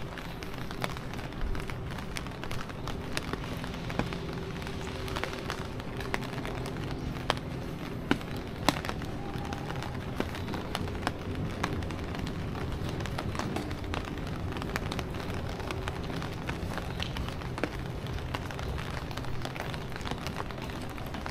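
Outdoor street ambience heard while walking: a steady background rush with a low, even hum, dotted throughout with many small sharp clicks and ticks.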